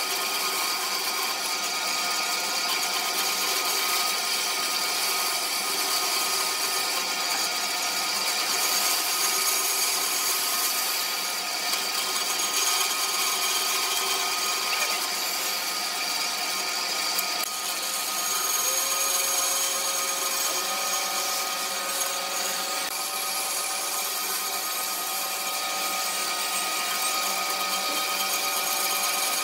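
Band saw running steadily, its blade cutting through a small piece of wood.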